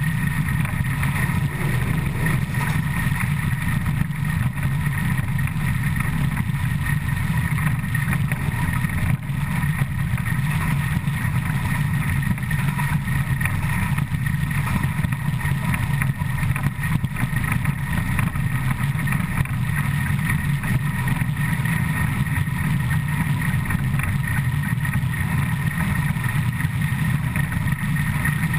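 Steady running noise of the Škoda-built ČSD 475.179 steam locomotive's driving wheels, side rods and rails at about 100 km/h, heard up close beside the driving wheels. It is loud and unbroken throughout.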